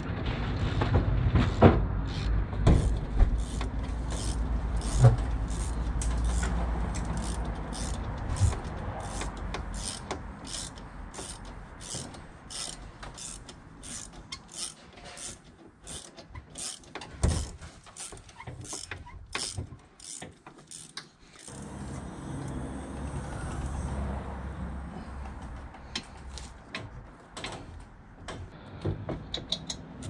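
Ratchet with a hex bit clicking in steady strokes, about two clicks a second, as a front brake caliper bolt is undone. The clicking stops about two-thirds of the way through and starts again near the end.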